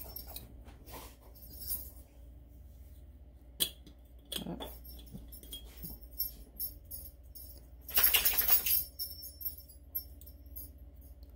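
Small metallic clinks and taps of a metal spoon against a metal mesh tea-strainer basket while loose tea leaves are spooned in, with a louder rustling burst lasting under a second about eight seconds in.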